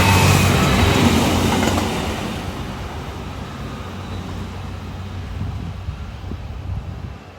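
A train running past close by, loudest at the start and fading over a couple of seconds as it moves away, leaving a steady low hum and rumble that dies down near the end.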